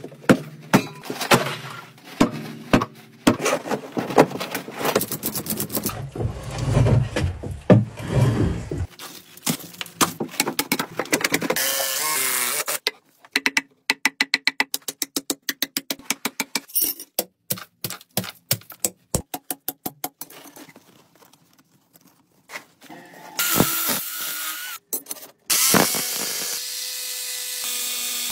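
A quick-cut string of demolition and building work sounds, mostly sharp knocks and impacts. It opens with a sledgehammer blow against the steel tank of an electric water heater, and near the end a rotary hammer drill runs into rock.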